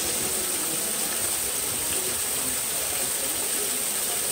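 Steady rushing of running water, like a waterfall or water feature, at an even level throughout.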